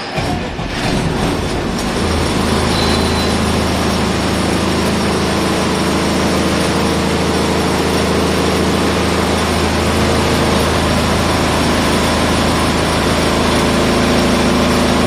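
Dredger's generator set engine starting up with an uneven catch in the first couple of seconds, then running steadily at an even pitch.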